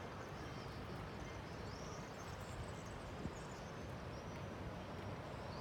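Outdoor ambience: a steady low rumble with faint, high-pitched bird chirps every second or so.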